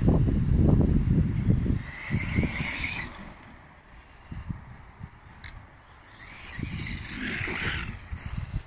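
An FTX Carnage RC buggy conversion running on a 3S battery, its electric motor whining high as it speeds away across grass: one burst about two seconds in, rising slightly, and another near the end. Gusty wind rumbles on the microphone, loudest in the first two seconds.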